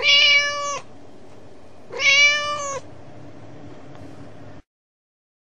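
Domestic cat meowing twice, two clear calls of under a second each, about two seconds apart, over a faint hiss that cuts off suddenly near the end.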